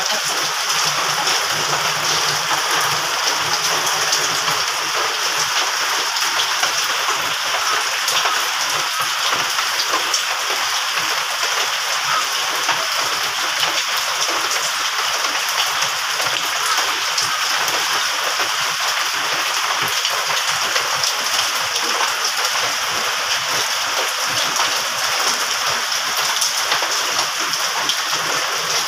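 Steady, loud rain falling on wet, puddled ground, an even hiss that doesn't let up.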